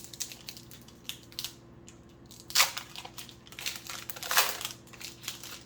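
A trading card pack's wrapper being torn open and crinkled, with two louder tearing bursts about two and a half and four and a half seconds in.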